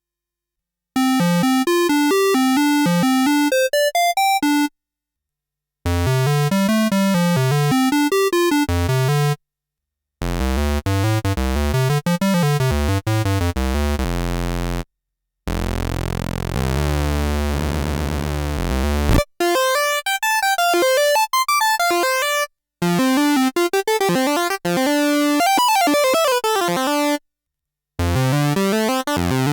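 Yamaha CS01 analog monosynth playing a run of short phrases of quick single notes that rise and fall, separated by brief silences. The patch changes between phrases, and a low, bass-heavy stretch sits in the middle.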